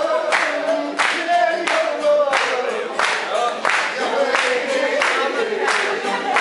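A group singing a folk tune together, with rhythmic handclaps about three a second keeping the beat for the dance.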